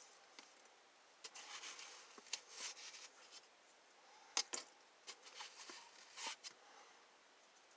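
Faint handling noises on a workbench: short spells of rustling and light scraping, with a few sharp clicks, two of them in quick succession about four and a half seconds in.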